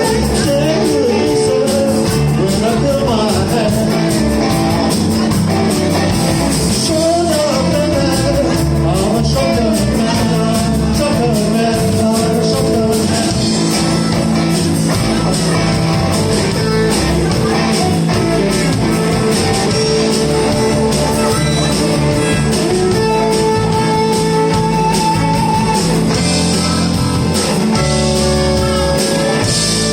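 A live electric blues band playing an instrumental break: guitars, bass and drums keep a steady groove while a lead line bends and wails over it.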